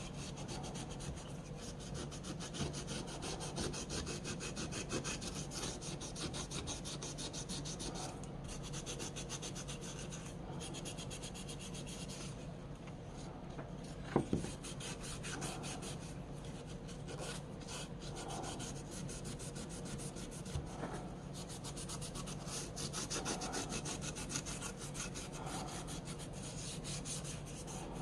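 Fast, steady back-and-forth rubbing strokes of hand abrasive work, with a single sharp knock about halfway through.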